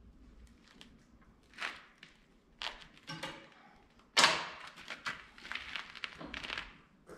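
Hand work at a tractor's front axle during greasing: a few light clicks and a short rattle, then one loud knock about four seconds in, followed by scraping and shuffling.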